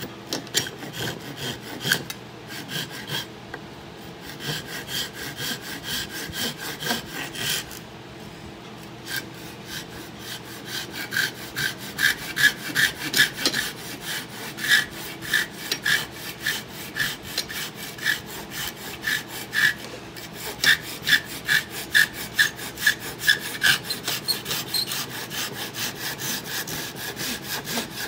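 A hand saw cutting through an old wooden axe handle right at the axe head, in steady back-and-forth strokes a few times a second. There are brief pauses about 4 and 8 seconds in, and the strokes get louder after about 11 seconds.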